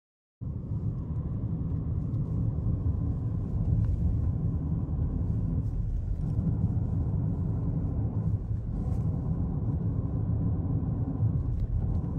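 Steady low rumble that cuts in abruptly about half a second in.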